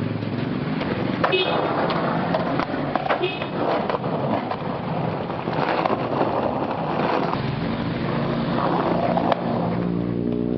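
Skateboard wheels rolling on rough concrete, with a couple of sharp board clacks. Near the end, an engine in the background rises in pitch.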